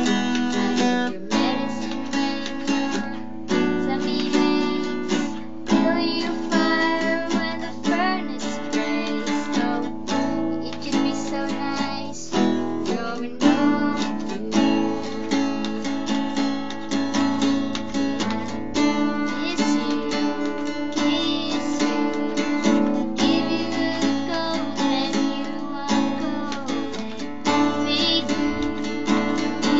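Acoustic guitar strummed in a steady run of chords, with a young woman singing a song over it.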